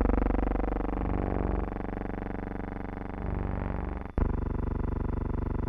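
Instrumental music of sustained chords that change every second or so, with a sharp click and a brief dropout about four seconds in.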